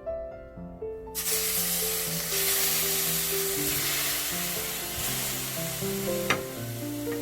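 Food sizzling in a hot pot, starting about a second in, over background music with slow melodic notes; a single sharp knock near the end.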